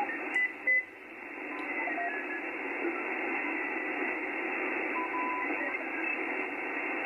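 Icom IC-7610 HF receiver's audio hissing with band noise on 40 metres, heard through its narrow SSB filter: a noise floor of about S5 from the interference being chased down. It dips briefly about a second in, and a few faint short carrier tones come and go.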